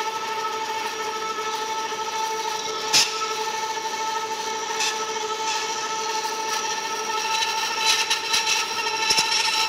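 1940 DoAll V-26 vertical band saw sawing through metal bar stock, running with a steady whine. There is a sharp click about three seconds in, and the cutting grows louder and rougher over the last two seconds.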